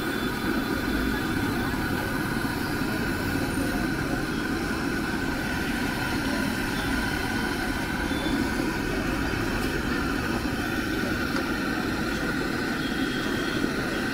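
Shrimp pakoras deep-frying in a large pan of hot oil, the oil bubbling and sizzling steadily over a constant low rumble.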